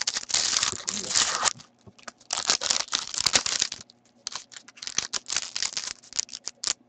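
Foil wrapper of a hockey trading-card pack being torn open and crinkled by hand, crackling in three stretches with short pauses about two and four seconds in.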